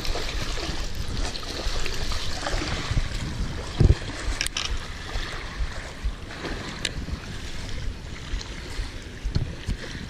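Wind buffeting the microphone over small waves lapping at the shore, with a few sharp handling knocks and one low thump about four seconds in.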